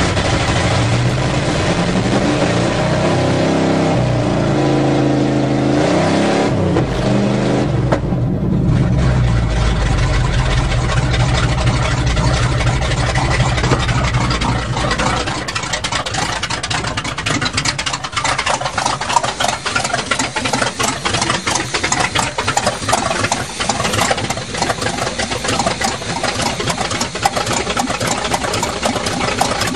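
A 1977 GMC truck's carbureted engine running while cold. The engine speed rises and falls for the first several seconds, then settles from about fifteen seconds in to an uneven, choppy idle as it warms up.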